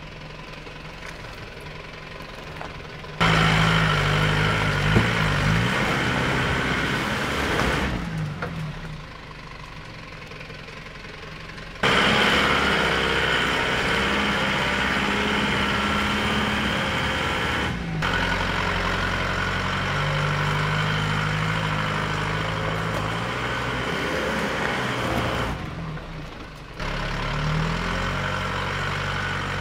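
Holden Rodeo (Isuzu TF) ute's engine pulling under load up a rutted dirt climb. It runs low at first, then revs up suddenly about three seconds in, eases back, and revs hard again for a long stretch and once more near the end, its pitch rising and falling as the throttle is worked.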